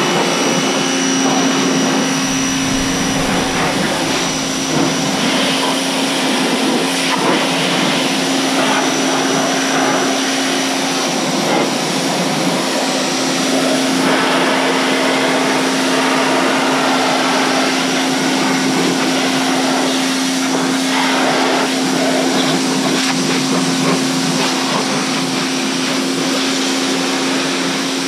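Corded electric 2200 PSI pressure washer running steadily, its motor and pump giving a steady hum under the hiss of the high-pressure water spray hitting the ATV.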